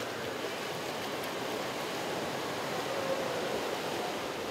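Steady splashing and rushing of pool water churned up by a swimmer's strokes.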